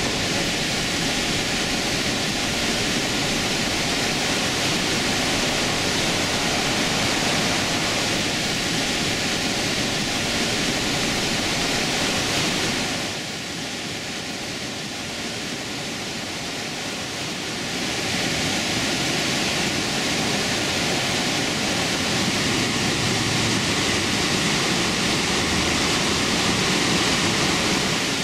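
Steady roar of the Iguazú Falls' cascades, a broad rushing noise. It drops quieter about 13 seconds in and rises again about five seconds later.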